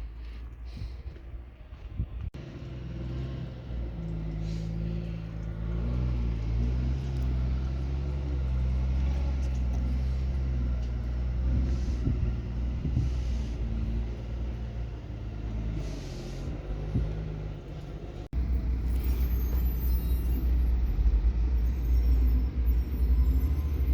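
Wheel loader's diesel engine running steadily with a low rumble. The sound jumps abruptly about two seconds in and again about eighteen seconds in, and is louder after the second jump.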